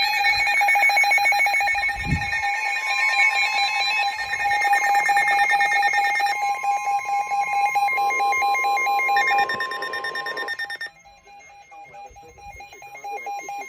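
Several NOAA weather radio receivers sounding their alert alarms at once for a severe thunderstorm warning: layered steady tones with fast beeping on top. About eleven seconds in most of them stop, leaving a quieter steady tone before the broadcast voice.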